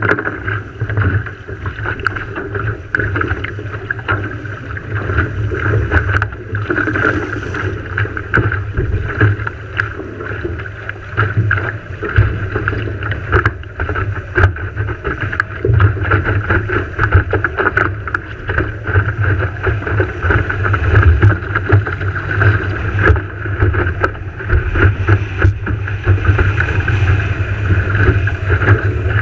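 Wind buffeting the microphone over water rushing and slapping along the hull of a Farr 3.7 skiff under sail. It is a steady, loud rush with frequent small slaps and knocks throughout.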